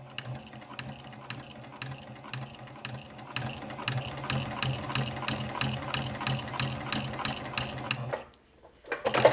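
Juki TL2010Q straight-stitch sewing machine topstitching slowly through heavy cowhide leather with thick Tex 69 thread: a steady motor hum with the needle stroke clicking about four to five times a second as the seam passes from two layers up to three. The stitching grows a little louder about three seconds in and stops about eight seconds in, followed by a short sharp sound right at the end.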